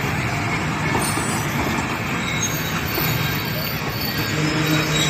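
Passenger coaches of a Pakistan Railways express train rolling past at speed: a steady, loud rumble and rush of steel wheels on the rails, with thin high wheel squeals now and then in the second half.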